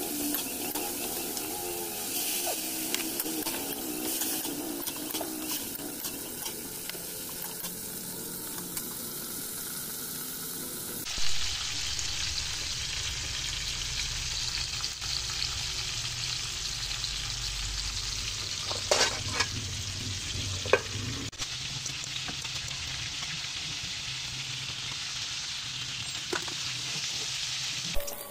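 Sliced bitter gourd (ampalaya) sizzling in hot oil as it is stir-fried in a wok, a metal spatula stirring and scraping through it. The sound changes abruptly about eleven seconds in, with a knock then and a few sharp clicks of the utensil later.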